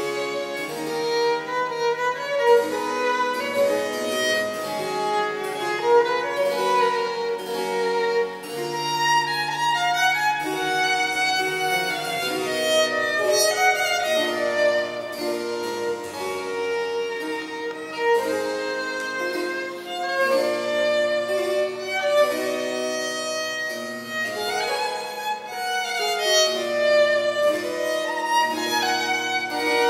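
Violin playing a melody over harpsichord accompaniment.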